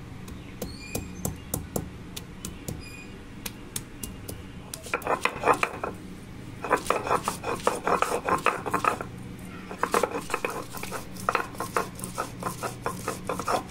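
Stone roller crushing and grinding onion, garlic, ginger and green chillies on a flat stone grinding slab (shil-nora) to make a spice paste. Scattered sharp clicks and cracks at first as the pieces are crushed, then quicker runs of rolling, scraping grinding strokes from about five seconds in.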